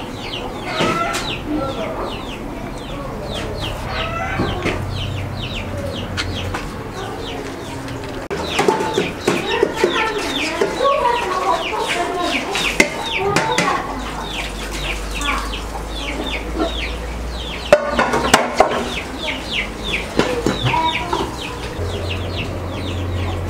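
Chickens clucking amid a steady run of quick, high chirps that fall in pitch, several a second throughout.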